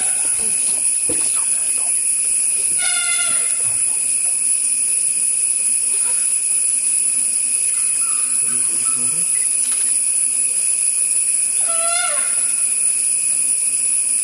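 Dholes (Indian wild dogs) giving short, high, whistling mew-like calls twice, about three seconds in and again about twelve seconds in, over a steady high-pitched hiss.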